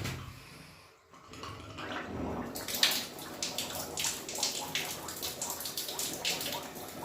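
Water running and splashing from a tap, starting in full about two and a half seconds in and carrying on with an uneven, splashy hiss.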